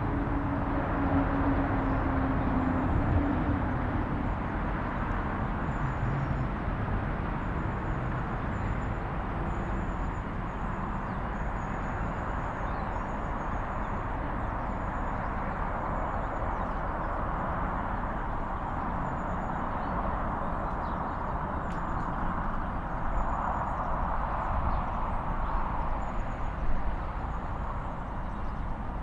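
Steady outdoor rumble of road traffic, with a vehicle's falling engine tone in the first few seconds and a bird chirping repeatedly in short, high notes.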